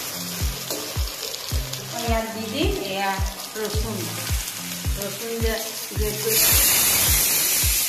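Background music with a steady beat of about two drum hits a second and a melody line, over vegetables frying in oil in a kadai. About six seconds in, a loud hiss of sizzling lasts about a second and a half.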